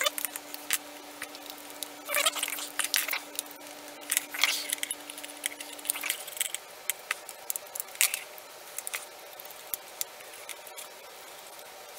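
Small screws being driven with a precision screwdriver into the plastic housing of a slim LED work light. Short scratchy scraping bursts mix with scattered sharp clicks as the plastic parts and end cap are handled.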